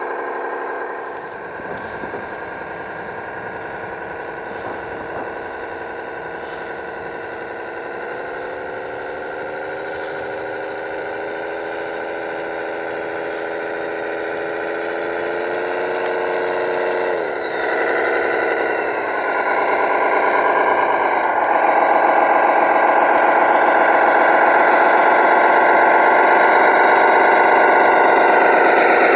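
RC Globe Liner semi-truck's drive sound, a steady engine-like drone rising in pitch as the truck speeds up, dropping sharply twice past the middle like gear changes, then holding higher and louder.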